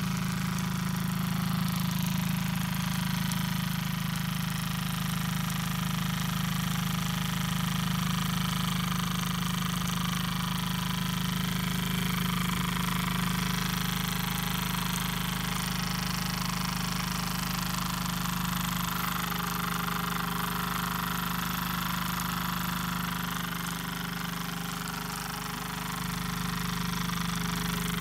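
Small brass Opitec model steam engine running steadily at speed, its flywheel spinning, with an even mechanical rattle and hum.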